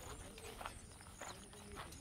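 Faint footsteps crunching on gravelly dirt ground, a few separate steps, with faint, evenly spaced high chirps behind them.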